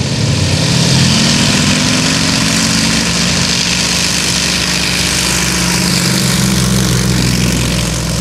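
Yak aerobatic plane's nine-cylinder radial engine and propeller running at full power on the takeoff roll. The engine note climbs over the first couple of seconds, then holds steady and loud until the plane lifts off.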